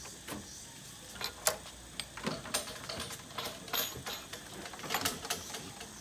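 Irregular clicks and knocks from a door lock and handle as a wooden room door is unlocked and swung open.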